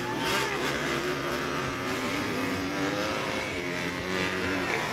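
Motocross dirt bike engines revving on the track, the pitch rising and falling as the riders work the throttle.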